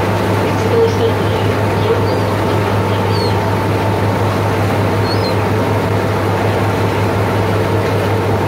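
Tour boat's engine running with a steady low drone, with a few faint short high cries from the gulls following the wake.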